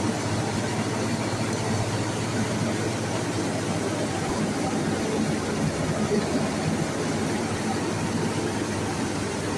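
Rice mill running steadily while milling palay, a dense continuous machine noise over a steady low hum, with milled rice and bran pouring out.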